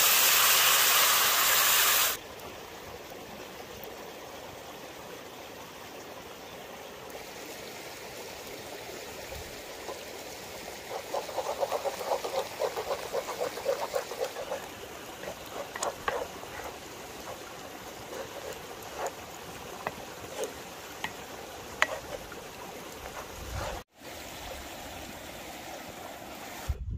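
Pasta water hitting a hot cast-iron skillet of pasta and pancetta, giving a loud sizzling hiss that cuts off about two seconds in. After that a river stream runs steadily underneath, while a wooden spoon stirs the pasta in the pan with a crackling sizzle and scattered clicks.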